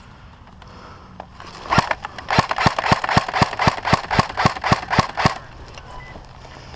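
Airsoft rifle firing a rapid string of about fifteen sharp shots, about four a second, starting a couple of seconds in and stopping abruptly near the end.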